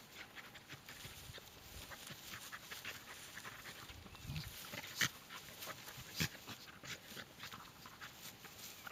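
Two small dogs play-wrestling in grass, heard faintly: panting and snuffling with rustling, and a couple of sharper clicks about five and six seconds in.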